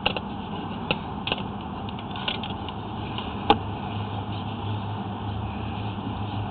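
A sewer inspection camera and its push cable being fed through a sanitary drain line, giving irregular knocks and clicks against the pipe with one sharper knock about halfway, over a steady low hum that grows stronger after that knock.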